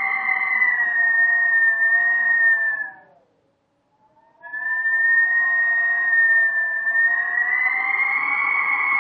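Howling wind sound effect: a whistling, tonal howl with several pitches held together, fading out with a slight downward slide about three seconds in, then after about a second of silence rising back in and holding steady.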